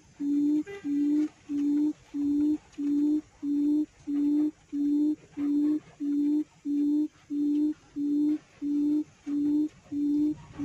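Recorded quail call played as a lure through a speaker: one low hooting note repeated very evenly, about twice a second.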